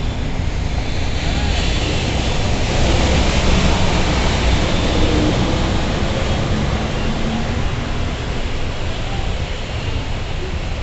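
Road traffic moving through floodwater: a steady rush of splashing water over engine and tyre rumble. The water noise swells about two seconds in.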